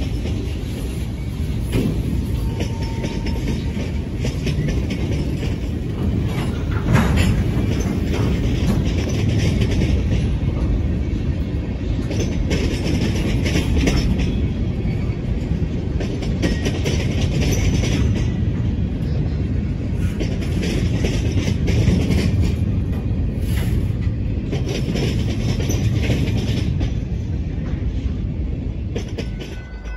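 Freight cars rolling past on jointed track: a steady low rumble with scattered wheel clicks. It eases off near the end as the last car goes by.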